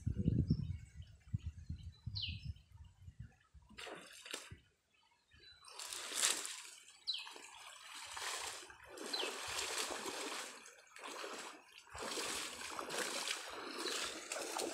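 Shallow pond water splashing and sloshing in repeated washes from about six seconds in, with water running and dripping off as a person wading in the pond lifts mud and weed out of it by hand.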